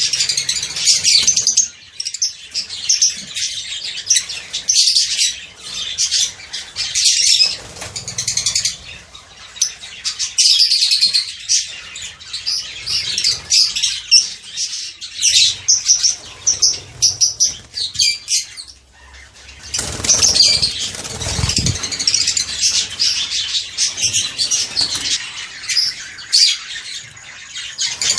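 Small pet parrots chattering with rapid, shrill chirps that overlap almost without a break. About twenty seconds in, a low rumble lasts for a couple of seconds under the chirping.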